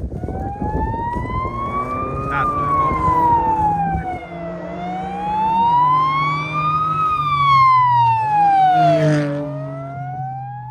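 Siren of a rally course car with a roof light bar passing on the closed stage road: a slow wail that rises and falls twice, over the car's engine. It is loudest as the car goes by near the end.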